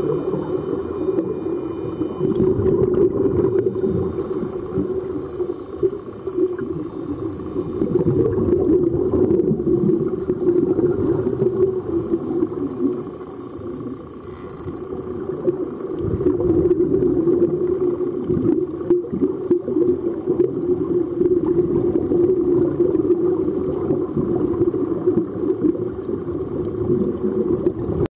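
Steady, muffled water noise with a bubbling hiss, swelling and easing every few seconds.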